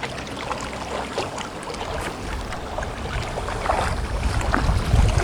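Wind buffeting the microphone over choppy water, with small waves slapping and splashing at the shore in scattered clicks.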